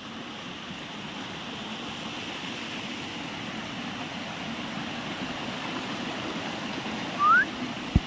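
Small monsoon stream running over rocks, a steady rushing of water. Near the end, one short rising chirp.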